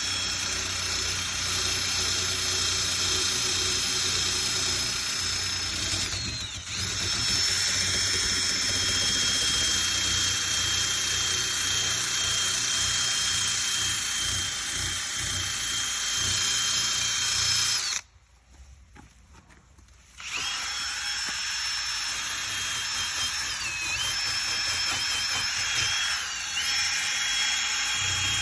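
Electric drill with a sanding attachment running against the hood's painted metal, a steady high whine. It dips briefly, stops for about two seconds two-thirds of the way through, then starts again, its speed wavering near the end.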